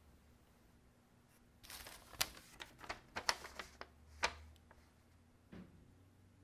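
A sheet of paper rustling and crinkling as it is handled, a quick run of sharp crackles lasting about two and a half seconds, with a soft thump near the end.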